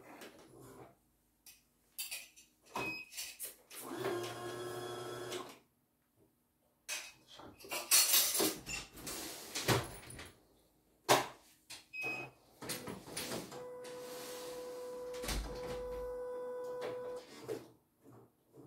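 Handling of a small plastic CNY embroidery machine on a workbench: clicks, knocks and scraping. Twice the machine's motor runs steadily for a second or more, about four seconds in and again for a few seconds near the end, the second time with a steady whine.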